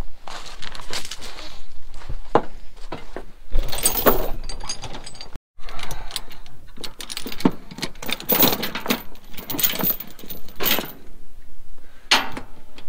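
Steel tie-down chain rattling and clinking, with irregular metallic clanks against a wooden trailer deck as a chain binder is hooked on.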